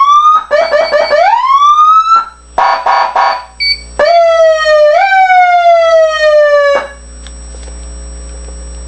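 Electronic emergency-vehicle siren played at full volume through siren speakers: several quick rising manual-tone sweeps and one longer rise, then a short harsh buzzing blast, then a tone that jumps up and slowly winds down before it cuts off about seven seconds in, leaving a steady hum.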